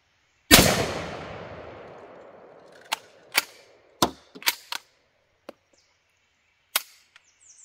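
One shot from a Mossberg 190 16-gauge bolt-action shotgun about half a second in, with a long echoing tail, followed by a series of sharp metallic clicks and clacks as the bolt is worked. The detachable magazine drops out, so the bolt fails to pick up a new shell.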